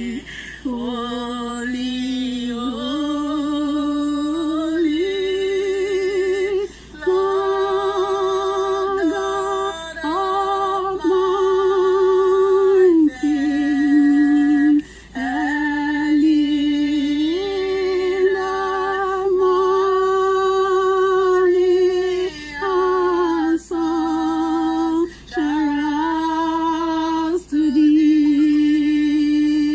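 A woman singing unaccompanied: slow phrases of long held notes with a wavering vibrato, broken by short pauses.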